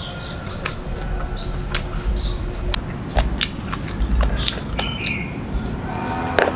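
Birds chirping in short, high notes, with a few sharp clicks and knocks and a low rumble underneath.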